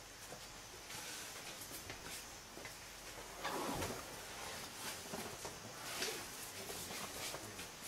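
Faint scuffs and soft clicks of elephants walking across a brick-tiled floor, with a louder rustling scuff a little after three seconds in.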